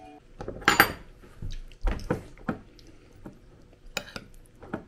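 Cutlery clinking and scraping against plates during a meal: a string of irregular knocks, the loudest about a second in.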